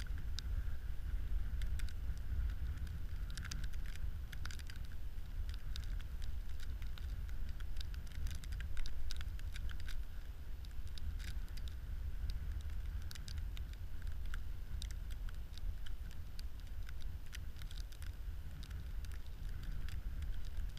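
Wind rumbling on the microphone, with scattered small clicks and rustles from gloved hands working a short ice-fishing rod and reel.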